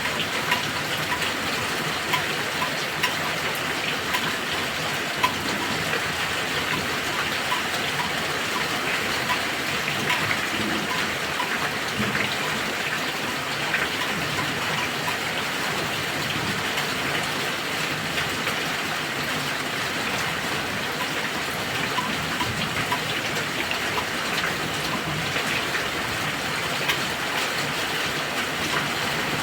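Heavy rain falling steadily, an even rushing hiss with drops pattering on a surface and a faint regular ticking in the first part.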